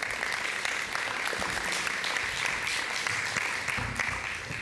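Audience applauding, many hands clapping steadily and fading out near the end.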